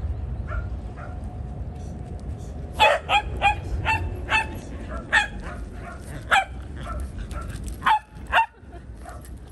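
A dog barking in short, sharp barks, about ten of them, starting about three seconds in, with the last two close together near the end.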